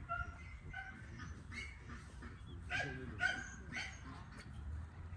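A series of short animal calls, several in quick succession around the middle.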